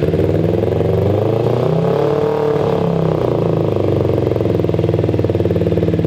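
Kawasaki Ninja 250 parallel-twin motorcycle engine in a kart buggy, running steadily just after being started, warming up before a carburetor sync. The revs rise slightly and settle back about two seconds in.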